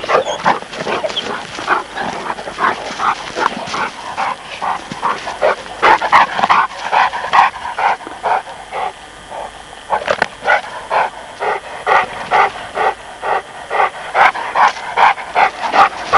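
Presa Canario and Neapolitan Mastiff puppies barking while they play-fight, short high yapping barks coming a few a second, with a short lull about halfway through.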